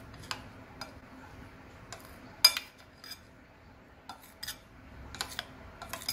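Metal spoon stirring batter in a bowl, clinking against the bowl's side every so often, with one louder clink about two and a half seconds in.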